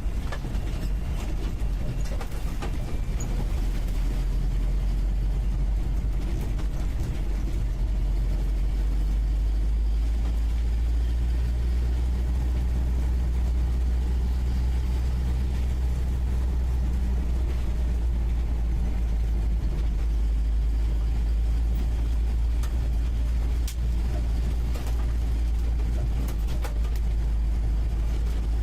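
UAZ 469B's four-cylinder petrol engine running under way, heard from the passenger seat inside the cab as a steady low drone that firms up about ten seconds in, with a few scattered knocks.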